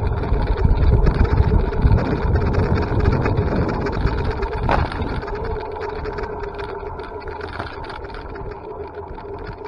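An e-bike in motion: a steady low rumble with a constant hum, growing quieter over the last few seconds.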